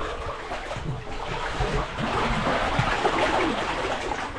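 Seawater sloshing and splashing around swimmers, an irregular watery wash with a steady low rumble underneath.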